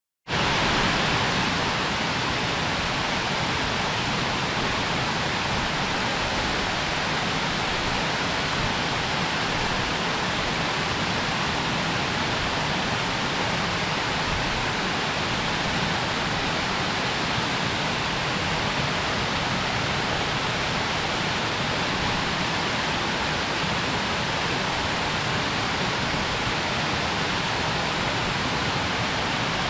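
Waterfall: a steady, even rush of falling water that begins just after the start and holds unchanged.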